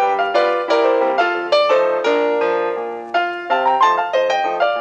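Solo piano music playing a brisk accompaniment of many short notes in quick succession.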